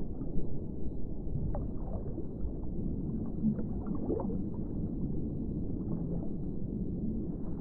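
Muffled underwater water noise: a steady low rumble with small gurgling bubble sounds popping up through it, a few of them around the middle.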